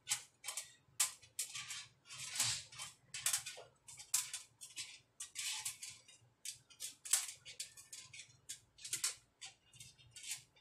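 Small screws clicking and scraping against the metal top cover of a Behringer Europower EP4000 power amplifier as they are pushed around and picked up by hand: an irregular run of light metallic ticks and short scrapes.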